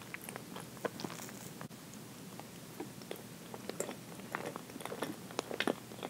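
Close-miked chewing of soft chocolate roll cake: wet mouth sounds with many small, quick clicks.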